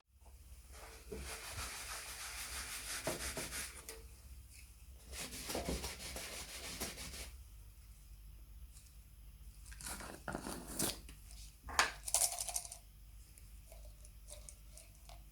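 Rubbing and scraping of hand work on a workpiece in two stretches of a few seconds each, followed by a handful of short, sharp scrapes and knocks about ten to thirteen seconds in.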